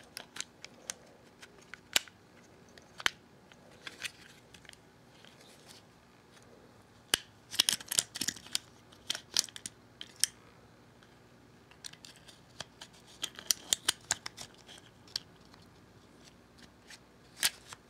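Scattered sharp clicks and small taps of Glock pistol parts and pins being handled and fitted by hand, some in quick clusters with quiet gaps between.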